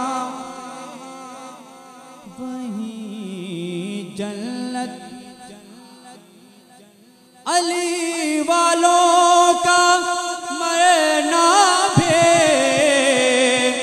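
Man's voice singing a drawn-out, melismatic line of an Urdu devotional manqabat into a microphone. It fades softer over the first several seconds, then comes back loud and higher about seven and a half seconds in, with long held, wavering notes.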